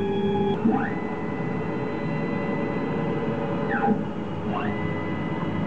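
Stepper motors of a Denford VMC1300 CNC milling machine driving rapid axis moves toward the toolchange. A whine rises in pitch about a second in, holds steady for nearly three seconds, then falls away. It rises again and holds near the end. A lower steady hum cuts off after about half a second.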